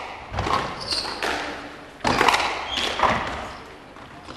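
Squash rally: the ball is struck by rackets and smacks off the court walls, a string of sharp hits about a second apart, with shoes squeaking on the wooden floor.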